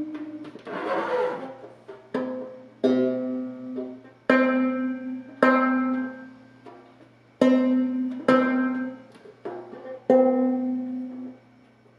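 Banjo strings plucked one at a time, about seven notes, mostly the same pitch, each ringing out and dying away before the next. A short scratchy strum-like noise about a second in.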